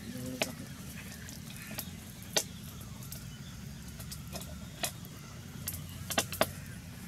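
Scattered sharp clicks as ripe palmyra palm fruit flesh is peeled and pulled apart by hand, over a steady low rumble.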